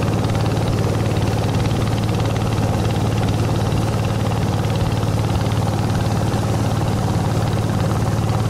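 Long-tail motorboat engine running steadily at speed, a loud, even hum with a strong low tone.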